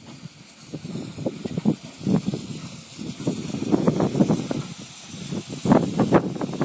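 Steam locomotive arriving slowly, with a steady hiss of steam over irregular clanks and knocks from the moving train, louder around the middle and again near the end.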